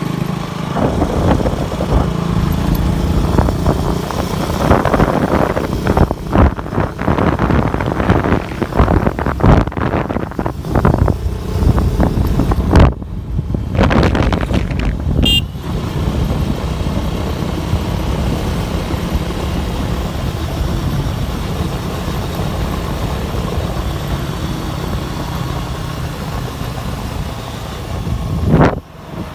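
Motorcycle engine running at road speed, with heavy, gusting wind noise on the phone's microphone.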